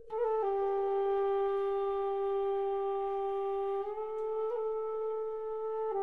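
Background music: a flute-like wind instrument holding long notes, stepping down in pitch just after the start and shifting again a few times.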